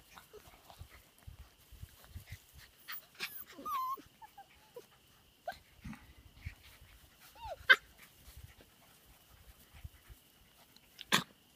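Five-week-old Australian Labradoodle puppies giving scattered short whimpers and high squeaks, some sliding in pitch. A sharp, louder sound comes about eight seconds in and another near the end.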